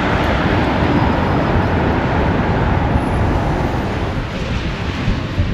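City traffic noise: a steady wash of road traffic with a low rumble, easing off a little near the end.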